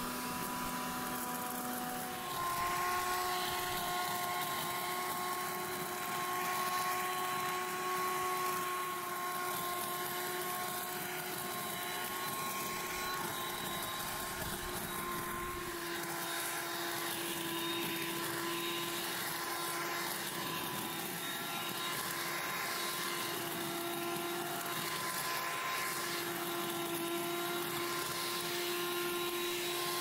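Bosch UniversalGardenTidy 3000 electric leaf blower-vacuum running in suction-and-shredding mode, drawing leaves into its collection bag: a steady motor-and-impeller whine. Its pitch steps up and it gets slightly louder about two seconds in.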